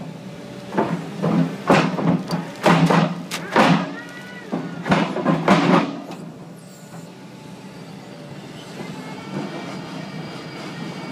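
Tescar CF6 mini piling rig running with a steady low drone, with a run of loud metallic knocks and thuds over the first six seconds during bored-pile drilling. After that it runs more evenly, with a faint high whine.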